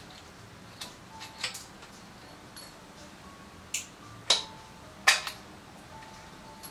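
Metal tools and parts clinking and knocking during motorcycle engine and transmission assembly: a string of separate sharp clinks, several trailing a short metallic ring, the loudest knock about five seconds in.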